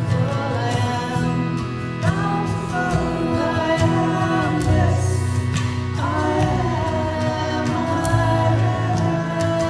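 Live song with harmonium, acoustic guitar and hand drum, a man and a woman singing together. The harmonium holds sustained chords under the voices, with a steady drum pulse.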